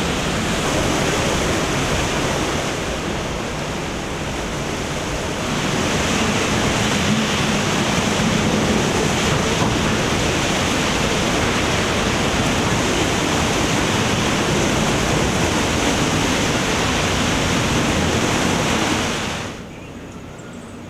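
Tropical-storm wind and rain thrashing palm trees: a loud, steady rushing noise that eases slightly around four seconds in and builds again. About a second before the end it drops abruptly to a much lower wind noise.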